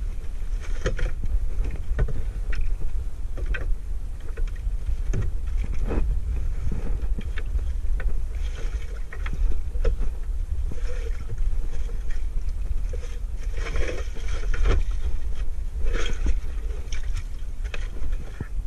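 Steady low wind rumble on the microphone aboard a small wooden outrigger fishing boat, with scattered knocks and scrapes of gear being handled against the hull.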